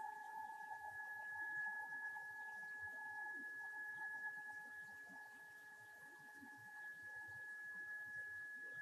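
Langmuir MR-1 CNC mill's axis stepper motors giving a steady, faint whine during a continuous jog that moves the spindle head across the table.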